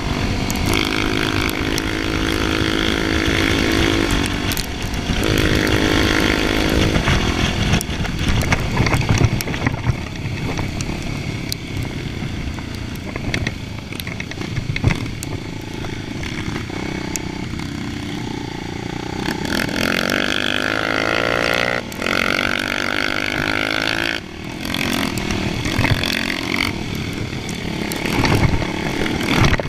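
Trail motorcycle engine heard from the rider's own bike, revving up and down in pitch as it rides along a dirt track.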